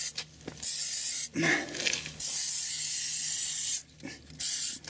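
Aerosol can of Muc-Off dry chain cleaner spraying onto a motorcycle drive chain in several hissing bursts. The longest burst lasts about a second and a half near the middle, and a short one comes near the end.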